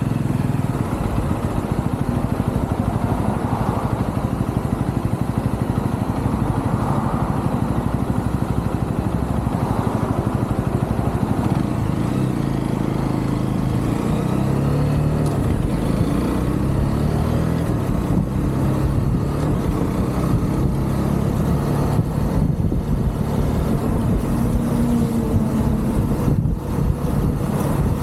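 UM Renegade Commando 125 motorcycle engine running under way, its pitch stepping up and down with throttle and gear changes, over a steady rush of wind and road noise.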